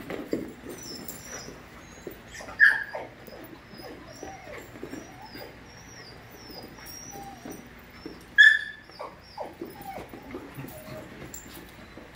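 Puppies at play: two loud, sharp yipping barks about two and a half and eight and a half seconds in, with high thin whimpering between them and short low scuffling and growl-like sounds throughout.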